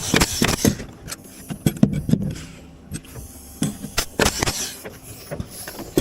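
Irregular knocks, clunks and clicks of wood-frame construction work: tools and lumber striking against timber, in scattered groups with short pauses.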